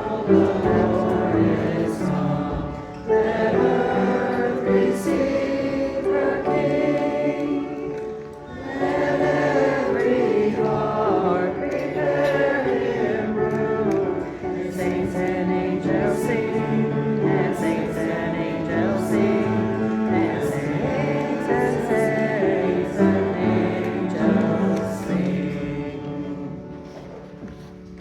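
Congregation singing a Christmas hymn together, the sustained notes of many voices changing every second or so. The singing dies away near the end as the verse closes.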